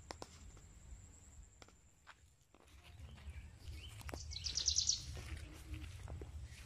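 Footsteps of a person walking outdoors over a low rumble, with a thin high whine that stops about two and a half seconds in. About four seconds in, a bird gives a short, fast trill, the loudest sound here.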